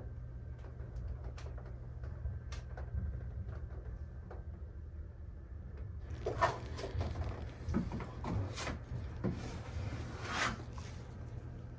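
Scraping and knocking of drywall hand tools at work on a wall, over a low steady hum. It gets busier and louder about halfway through.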